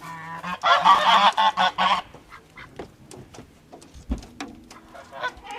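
Domestic geese, American Buff geese, honking loudly in a rapid run of calls for about two seconds, then scattered light knocks and a dull thump about four seconds in.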